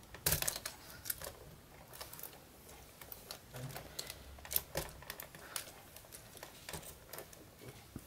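Irregular light plastic clicks and taps as toy robot boxer figures are handled and fitted onto the plastic boxing-ring base.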